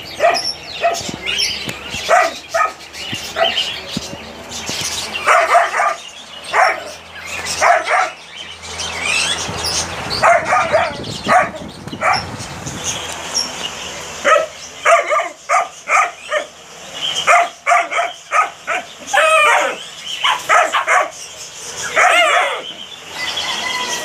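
Caged dogs and puppies barking and yipping in repeated short calls that come in bunches, most densely in the second half.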